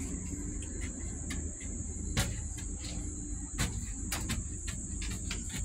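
Insects chirring as a steady high drone, with scattered clicks and knocks.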